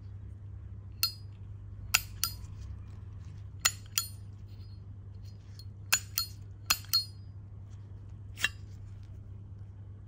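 Solid brass Zippo lighter clinking as it is handled, its case and insert worked in gloved hands: about ten sharp metallic clinks, several in quick pairs.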